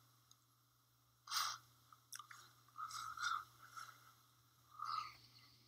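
A man's mouth and breath noises close to a microphone as he pauses, choked up: a quick breath in about a second in, a few small wet mouth clicks, and faint throat sounds.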